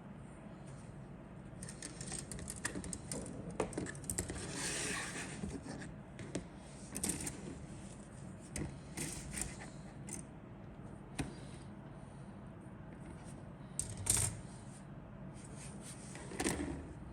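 Scattered light clicks, taps and rustling scrapes of plastic model-kit parts and packaging being handled, with a longer rustle about five seconds in and a sharper knock about fourteen seconds in.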